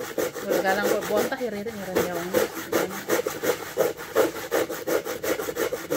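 Coconut flesh being grated by hand: fast, rhythmic scraping strokes, about five a second, wood and coconut rasping against the grater.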